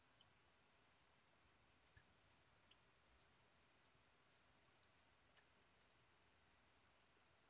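Near silence with faint, irregular clicks of a computer mouse.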